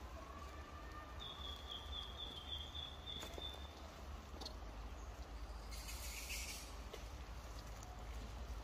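Faint outdoor woodland ambience with a steady low rumble. About a second in, a thin high-pitched animal call is held for a couple of seconds, and a brief hiss comes around six seconds in.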